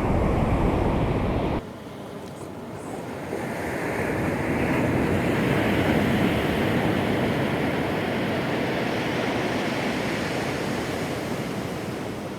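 Ocean surf washing up the beach, a wave swelling about midway and slowly receding. Wind buffets the microphone with a low rumble for the first second and a half, then cuts off suddenly.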